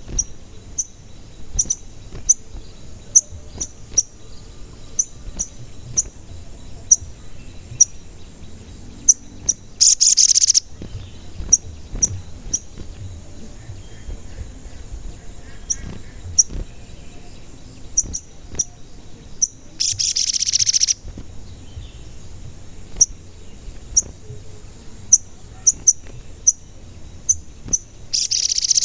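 Sogon bird calling: a steady run of short, high 'cuit' chirps, one every half second to a second, broken by three loud, harsh, buzzy bursts under a second long, about ten seconds apart.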